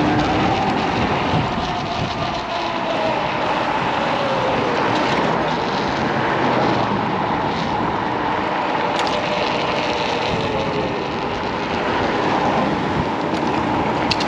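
Wind buffeting the microphone and road noise from a Kaabo Wolf King GT dual-motor electric scooter ridden fast. A faint whine wavers in pitch over the first few seconds.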